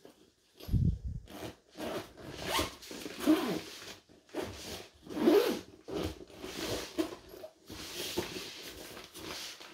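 A zipper being pulled in several short strokes, most likely on the cordless drill set's fabric carry bag, with a low thump about a second in.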